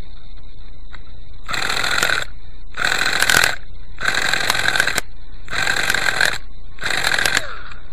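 An electric starter spinning the Quickie 18 helicopter's glow engine in five short bursts, each under a second. The engine turns over but does not catch: it is hard starting. A thin steady high whine runs underneath.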